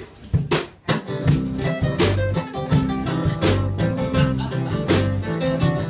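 Live country band starting a song's instrumental intro: after a couple of sharp hits, acoustic guitars, electric bass and a drum kit come in together about a second in and play on with a steady beat.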